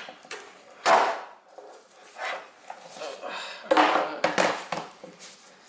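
Packaging being handled as a keyboard is lifted out of its box: rustling and scraping of foam padding and cardboard, with two louder bursts, one about a second in and one about four seconds in.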